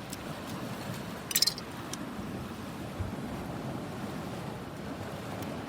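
Steady low rush of sea and wind, with a quick cluster of sharp clicks about a second and a half in and a soft knock around three seconds.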